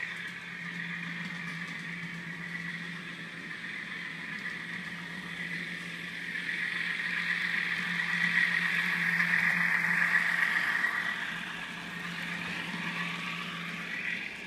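Diesel engine sound played from the onboard sound decoder and tiny speaker of an N scale Alco FPA-4 locomotive: a thin, steady engine drone. It grows louder in the middle as the locomotive comes close, then drops back.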